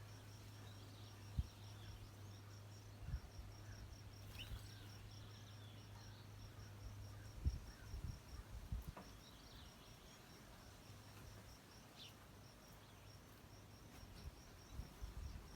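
Faint outdoor ambience: an insect chirping in a steady high-pitched pulse, about four a second, with a few faint bird chirps. Two soft low bumps come about a second and a half in and about halfway through.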